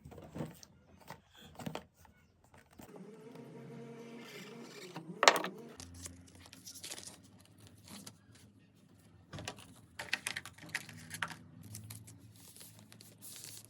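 A new phone's retail box and packaging being handled and opened: scattered clicks, crinkling and tearing of packaging, with one sharp click about five seconds in.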